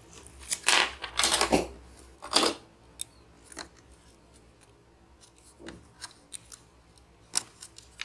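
Fingers handling a laptop's flat power-switch ribbon cable while fitting it into its connector on the metal chassis: three short, loud rustling scrapes in the first few seconds, then scattered light clicks and taps.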